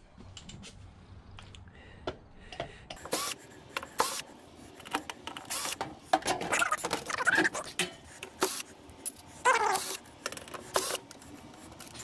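Metal parts and tools clicking, knocking and clattering as a 1975 Tappan microwave oven is dismantled for scrap, with short squeaks here and there. It is quieter for the first few seconds, then the handling noise comes thick and fast.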